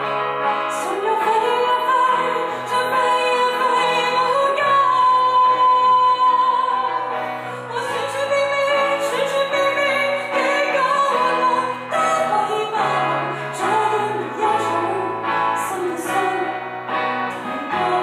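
A woman singing a pop ballad through a microphone, accompanied by strummed acoustic guitar and a Yamaha keyboard, played live by a small band.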